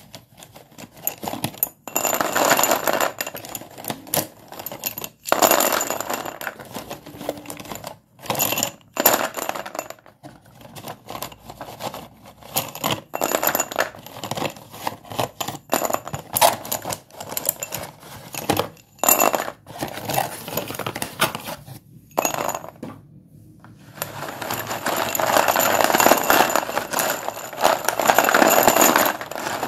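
Sticks of white dustless school chalk being broken and crumbled: a run of sharp snaps and crunches with short pauses, turning into dense, continuous crunching near the end.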